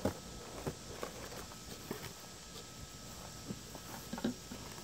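Long cardboard shipping box being opened by hand: a few scattered soft knocks and scrapes as the cardboard lid and flaps are lifted and folded back, over a faint steady hiss.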